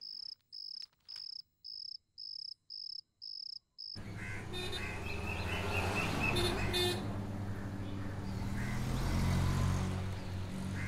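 A cricket chirping in an even rhythm, about two short high chirps a second, for about four seconds. Then it cuts off suddenly and a louder, steady outdoor background of noise with a low hum takes over.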